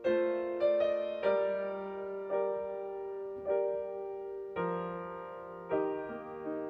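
Slow, gentle piano music in the background: notes and chords struck roughly once a second, each one fading away before the next.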